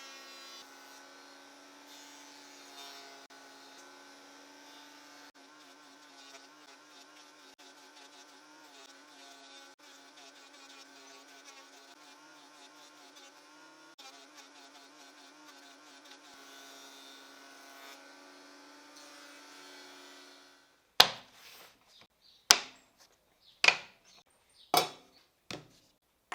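Thickness planer running with a steady buzzing hum while pine strips are planed. Near the end the hum cuts off and a series of sharp wooden knocks follows, about one a second.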